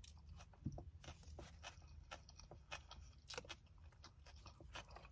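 Quiet close-up chewing of a toasted sub sandwich: soft, irregular crunches and wet mouth clicks.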